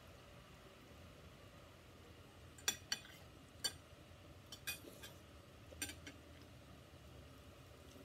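Metal fork and spoon clinking against dishes while eating: about seven short, sharp clinks, beginning nearly three seconds in and scattered over the next few seconds.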